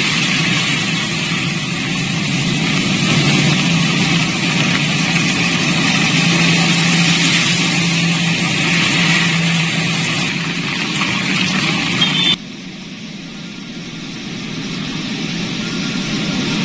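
Cars driving through deep floodwater on a road: engines running with a steady hum under a loud rush and splash of water. About twelve seconds in it cuts abruptly to a quieter, steady rush of a flooded river.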